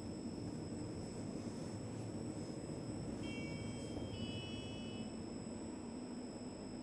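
Steady low machinery hum while a lift is on its way, with a faint electronic beep-like tone in two short parts about three seconds in.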